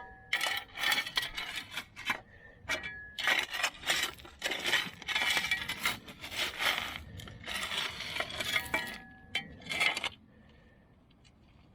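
River gravel and stones rattling and clinking against hard tools in quick, irregular strokes, the sound of a gold prospector digging and working gravel. It stops about ten seconds in.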